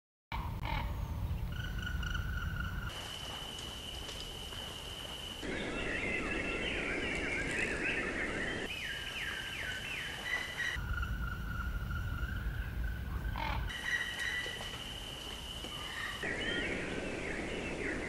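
Bird calls and chirps in short spliced clips that change abruptly every two to three seconds. Some stretches hold steady high tones over a low rumble; others are busy with quick chirps.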